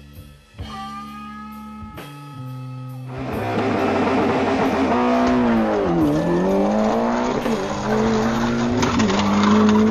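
Guitar-led music, then from about three seconds in a loud race-car engine sound effect revving, its pitch dropping and climbing again about six seconds in and once more near the end, with music still underneath.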